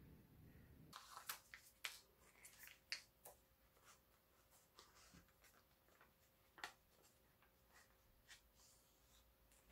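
Foil sheet-mask pouch being handled and torn open: scattered sharp crinkles and clicks, quiet overall.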